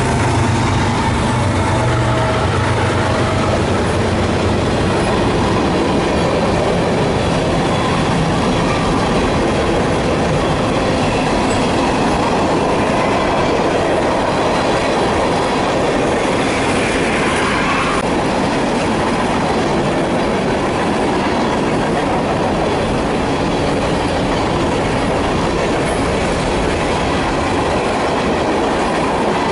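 Freight train cars rolling past on jointed track, a steady rumble and clatter of wheels on rail. The diesel locomotive engine drone fades in the first few seconds as the trailing BNSF locomotive goes by, and a short wheel squeal rises about halfway through before cutting off suddenly.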